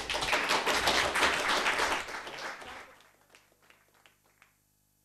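Audience applauding, dying away about two and a half seconds in, with a few last scattered claps after.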